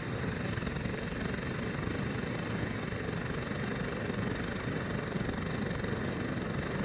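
Homemade firework fountain burning with a steady rushing hiss and a fast flutter as its red strobe composition burns.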